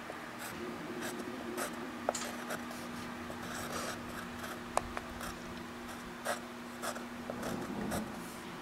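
Graphite pencil scratching across paper in short drawing strokes, with a few sharp ticks as the tip meets the page, over a steady low hum.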